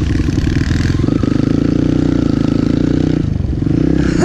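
Kawasaki KLX 140L dirt bike's single-cylinder four-stroke engine running under throttle as it is ridden, easing off briefly about three seconds in and then pulling again.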